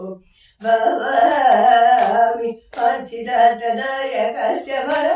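A woman's voice singing a Carnatic classical melody, with held notes that glide and bend in pitch. The singing begins about half a second in and breaks briefly partway through.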